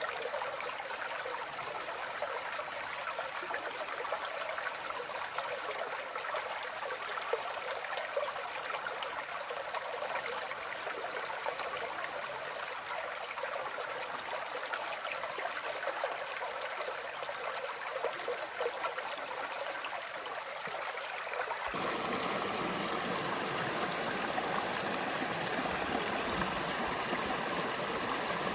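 Creek water flowing over rocks in a steady rushing babble. About 21 seconds in, the sound abruptly turns fuller and deeper and a little louder.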